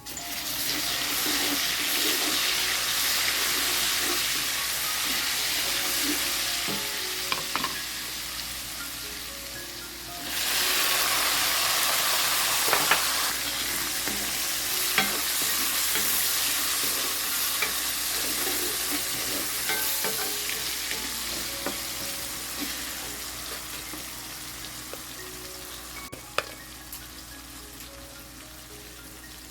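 Food sizzling in hot oil in a cooking pan, with the clicks of a utensil stirring it. The sizzle starts suddenly, surges again about ten seconds in, then slowly dies down.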